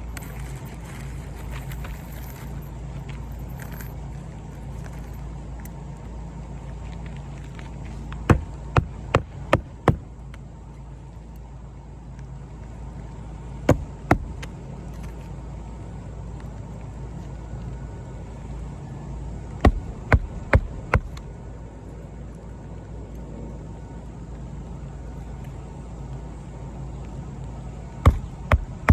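Hammer driving roofing nails into an asphalt shingle: four short runs of sharp strikes, about five, then two, then four, then three, each strike about half a second apart. A steady low hum runs underneath.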